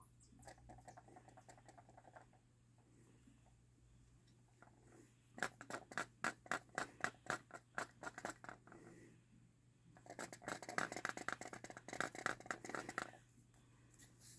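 A loose part rattling inside a Canon EF 100-400mm L II telephoto zoom lens: quick runs of light clicks, a faint run near the start and two louder spells in the second half. The cause of the rattle is unknown, and the lens still focuses and takes pictures normally.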